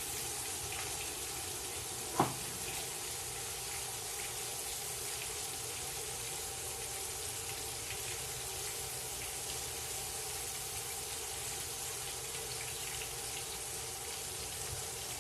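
Fish fillets deep-frying in peanut oil in a cast-iron pan, a steady sizzle as moisture boils out of the fish. A single sharp click about two seconds in.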